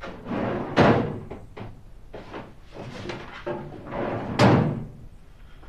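A bedside cabinet being opened and shut, with a sharp knock about a second in and a louder one a little past four seconds.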